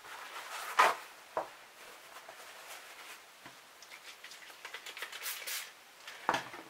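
Handling noises at a workbench: two sharp taps about a second in, then soft rustling and light ticks as a paper towel is picked up and handled, with a couple more taps near the end.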